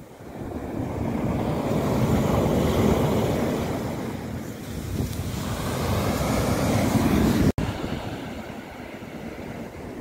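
Small sea waves breaking and washing in foam up a sandy beach, swelling up twice, with wind rumbling on the microphone. The sound drops out for an instant about seven and a half seconds in.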